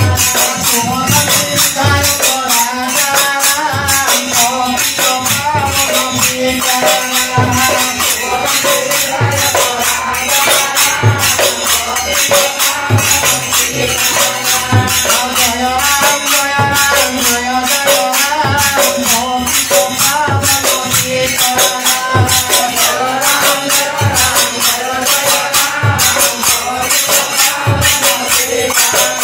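Group devotional singing with small brass hand cymbals clashing in a fast, steady rhythm and a hand drum beating underneath, about one to two strokes a second.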